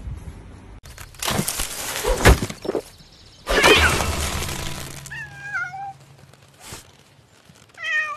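Domestic cat meowing twice, two short wavering meows, the second longer and lower, about five seconds in and near the end. Before them come a few seconds of loud rough noise with sharp knocks.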